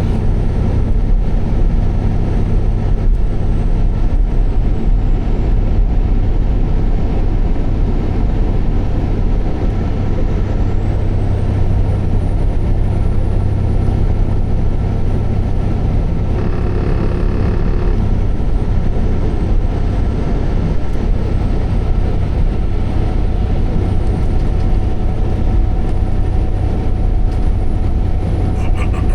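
Semi-truck engine running with a steady low rumble. A brief pitched tone sounds over it about halfway through.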